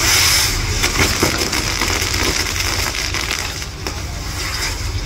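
Fireworks castle (castillo de pirotecnia) burning: a dense, continuous crackling and hissing of sparks from its pyrotechnic frames and wheels.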